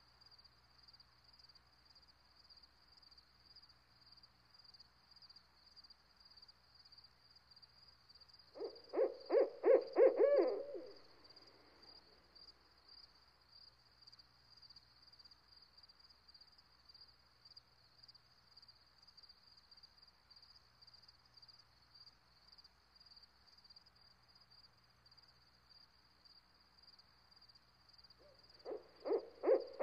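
An owl giving a run of about eight hoots that come quicker toward the end, about nine seconds in, and starting the same run again near the end. A steady high insect drone goes on underneath.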